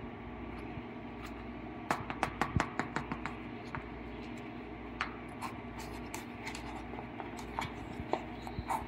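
Fingers picking dry seasoning out of a paper cup and sprinkling it over fish in a glass baking dish: a quick run of light ticks and scratches about two seconds in, then scattered ones. A steady low hum runs underneath.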